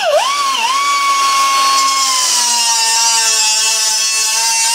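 Small angle grinder cutting 1/8-inch steel plate: a loud, steady high whine that dips in pitch in the first half second as the disc bites into the steel, then runs on under load.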